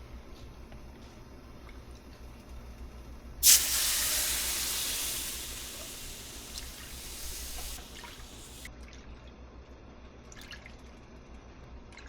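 Whole milk poured into a pan of hot butter-and-flour roux: a sudden hiss about three and a half seconds in that fades away over about four seconds.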